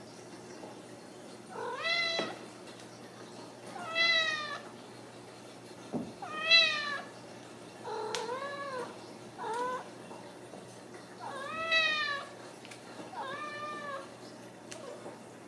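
Ragdoll kitten meowing over and over: seven high meows about two seconds apart, each rising and then falling in pitch. There are a couple of light knocks from the play near the middle.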